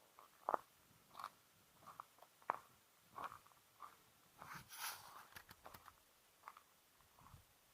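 A cat chewing: a faint, irregular run of small crunches and clicks, busiest about two-thirds of the way through.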